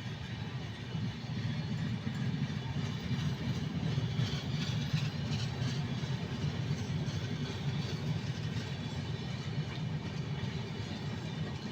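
Indian Railways train running: a steady low rumble with a rushing noise over it, swelling slightly in the middle.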